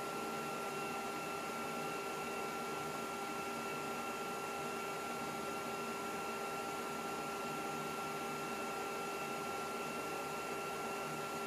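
Steady machine hum with a constant high whine, typical of a running Macintosh SE's cooling fan and electronics; it does not change at all.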